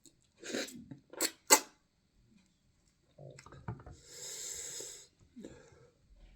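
Close-up eating sounds of someone eating fufu: short wet lip smacks and sharp mouth clicks, then a long airy hiss lasting about a second.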